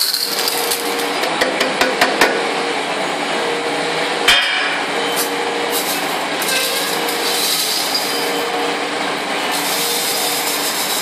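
Small scrap metal pieces clinking into a stainless steel jug, then rattling as they are poured from the jug into the crucible of an induction melting furnace near the end, over a steady mechanical hum.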